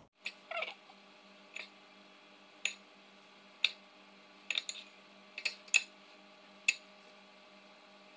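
Metal spoon clinking against a bowl as za'atar is scooped out and spread on croissant dough: about ten sharp, ringing clinks at uneven intervals, with a brief falling squeak near the start, over a faint steady hum.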